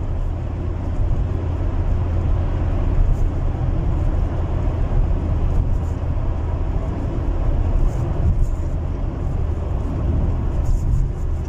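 Cabin noise inside a moving car: a steady low rumble of engine and road with an even hiss over it.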